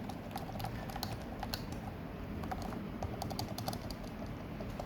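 Typing on a Redragon Karura K502 silent membrane gaming keyboard: a run of soft, quiet key presses in an irregular patter. The space bar makes a little bit of noise, while the rest of the keys stay very quiet.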